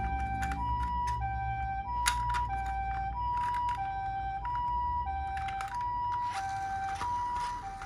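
Toy ambulance's electronic siren playing the Japanese two-tone 'pee-po' ambulance call, a higher and a lower tone alternating about every two-thirds of a second. Scattered sharp clicks and knocks sound over a low rumble.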